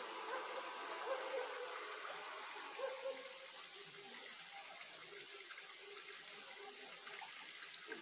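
Stream water flowing steadily, with a steady high-pitched insect drone over it. A few short low notes come and go in the first three seconds.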